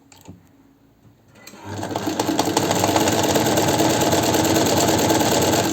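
Chaika 143A sewing machine starting up about a second and a half in, speeding up and stitching at a steady speed with a rapid clatter, then stopping near the end. A short click comes before it starts. It is a test seam run after repairing the machine's zigzag fault, where the needle struck the shuttle.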